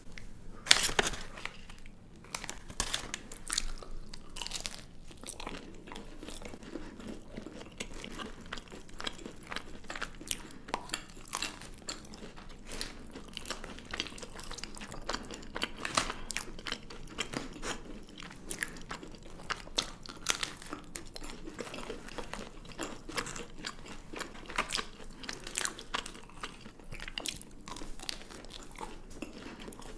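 Close-miked chewing of chocolate: many sharp, irregular crunches and bites with wet chewing in between.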